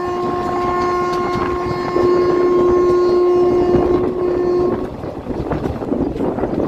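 Train horn held in one long, steady blast that gets louder about two seconds in and stops a little before five seconds. After it, the moving train rumbles under wind noise.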